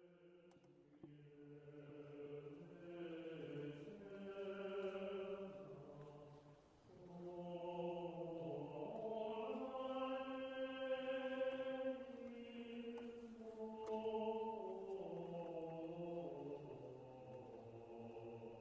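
Slow choral music in a chant style: several voices holding long notes that move from pitch to pitch in steps, fading in over the first few seconds.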